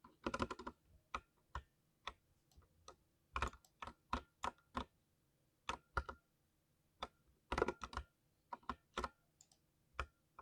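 Thocky mechanical keyboard being typed on in uneven bursts: a quick flurry of keystrokes at the start and another about three quarters through, with single key presses spaced out between.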